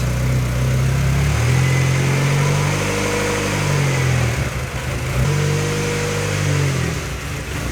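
Freshly rebuilt turbocharged Honda D16Z6 SOHC four-cylinder engine running while it warms up after its first start, its speed rising and falling twice. The owner thinks the engine's sound calls for a little more valve adjustment.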